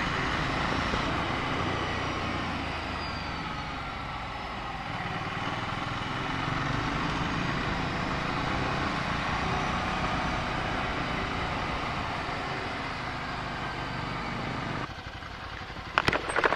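Motorcycle engine running under way on a winding road, with wind rush over the microphone, the engine note rising and falling. About fifteen seconds in, the sound drops to a quieter engine, and a couple of sharp clicks follow near the end.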